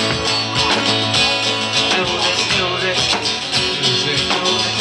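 Live band music: an acoustic guitar strummed over a drum kit keeping a steady beat.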